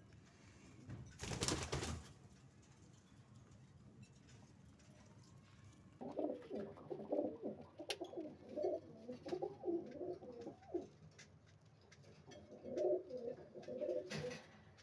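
Domestic pigeons cooing in repeated low phrases, starting about six seconds in, pausing briefly, then resuming near the end. A short burst of noise comes about a second in, before the cooing.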